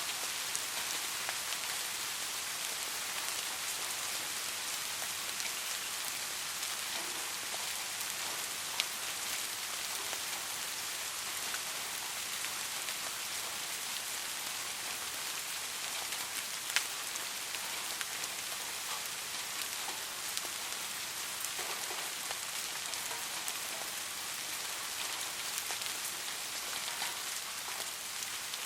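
Steady rain falling on a surface, an even hiss with scattered individual drop ticks, two a little louder, about a third and just over halfway through.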